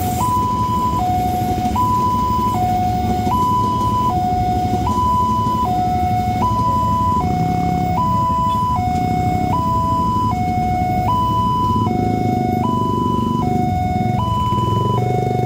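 Railway level-crossing warning alarm sounding, a two-tone electronic signal alternating high and low about every three-quarters of a second. Underneath runs the low rumble of a passenger train passing at first, then motorcycle engines.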